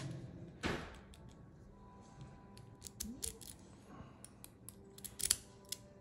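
Small sharp metallic clicks and scrapes from a brass Russwin Emhart mortise lock cylinder being worked apart by hand to get the core out. A rustle comes about a second in, then scattered clicks, with the loudest cluster near the end.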